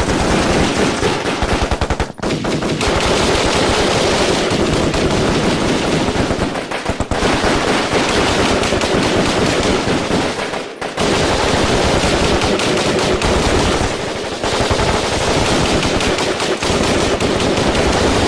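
Firefight: heavy automatic gunfire, many shots running together almost without a break, with short lulls about two seconds in and again near eleven seconds.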